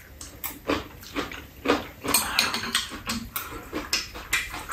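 Close-up eating sounds of people slurping and chewing ramen noodles: a string of short, irregular wet mouth sounds, with a longer slurp about two seconds in.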